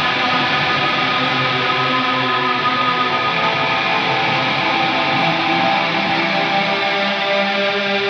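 Stratocaster-style electric guitar played through BIAS FX amp-modelling software on an iPad, a distorted tone with echo, notes and chords ringing on into one another without a break.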